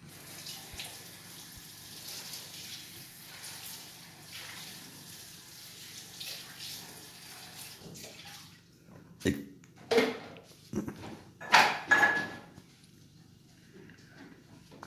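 Water running from a kitchen tap into a sink while something is washed by hand, a steady hiss for most of the time. Four louder, short splashing and clattering sounds come from the sink past the middle, and then it quietens.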